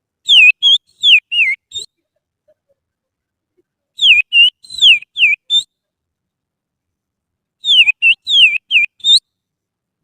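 Bird-song imitation made with the little finger, copying an oriental magpie-robin (kacer). Three short phrases of about five clear whistled notes each, most sliding down in pitch, with a gap of about two seconds between phrases.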